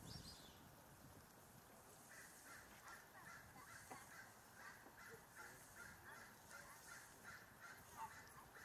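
Faint honking chatter of a flock of flamingos: from about two seconds in, a steady run of short calls, roughly three a second.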